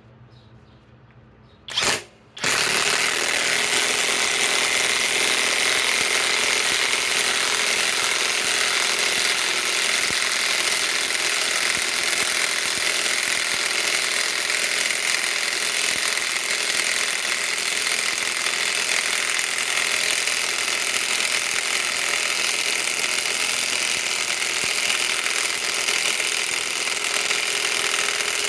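SKIL PwrCore 20 brushless mid-torque impact wrench hammering as it drives an 8-inch lag screw. A short blip of the trigger comes about two seconds in, then the wrench runs loud and without letup from about two and a half seconds in.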